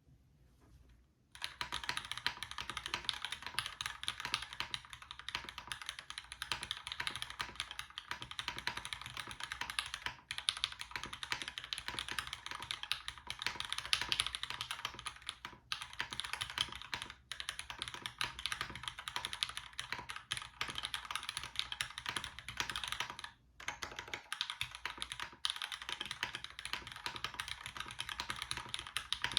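Fast, continuous typing on a dnworks DNDD mechanical keyboard with Cherry MX Black Ultraglide linear switches lubed with Krytox 205g0, an aluminum plate and GMK keycaps. The keystrokes start about a second in and run on with a few brief pauses.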